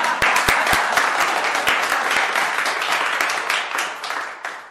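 Audience applause, many hands clapping, dying away near the end.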